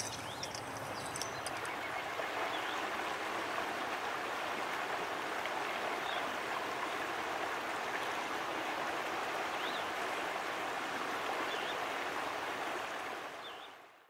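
River water running steadily, a continuous rushing noise, with a few short faint high chirps over it. It fades out near the end.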